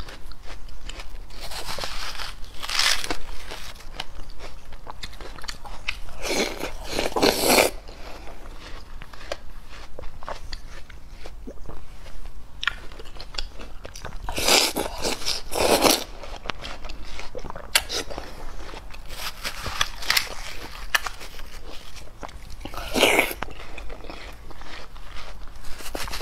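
Close-miked eating of juicy watermelon: wet, crunching bites and chewing of the flesh, with a metal spoon digging and scooping into the half melon. Several louder bursts come a few seconds apart, with small wet clicks in between.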